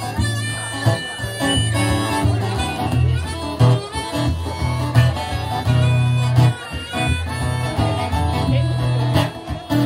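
A solo musician playing acoustic guitar and harmonica together: a country-style tune with the guitar keeping a steady bass and the harmonica carrying the melody.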